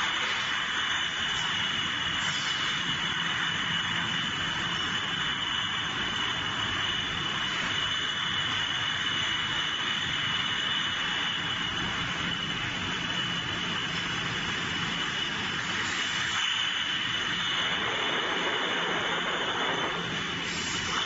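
Steady factory machinery noise from an automatic de-palletizer and its chain conveyors running, with a constant high-pitched whine over the hiss.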